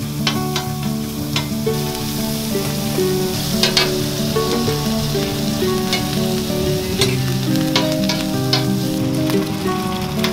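Butter, minced meat and eggs sizzling on a large flat steel griddle as they are stirred with a metal spatula, with sharp clicks now and then. Background music with held notes plays over it.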